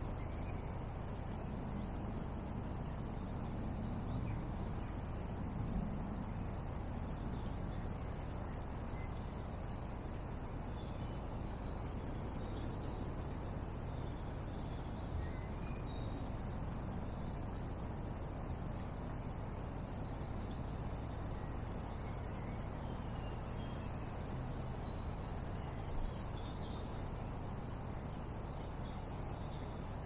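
A small songbird singing short, high trilled phrases every few seconds over a steady low background rush, with a couple of soft knocks.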